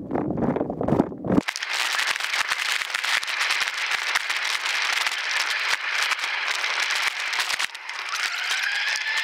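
Mountain bike riding over rough, loose ground: a dense crackling and rattling of tyres and bike parts. For about the first second and a half it is mixed with low wind rumble on the microphone, which then stops abruptly.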